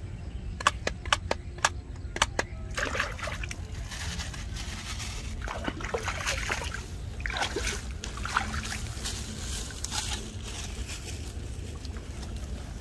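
A quick run of about seven sharp clicks, then water splashing and sloshing in uneven bursts as a person moves about in shallow muddy water.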